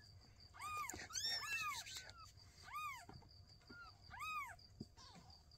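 Newborn kittens crying: a run of about six short, high-pitched mews, each rising and falling in pitch, two of them overlapping about a second in.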